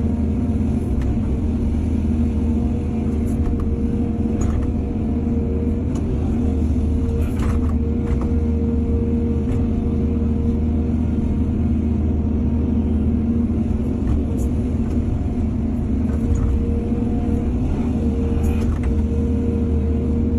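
Excavator's diesel engine running steadily under load, with several short clanks and knocks from the machine at work.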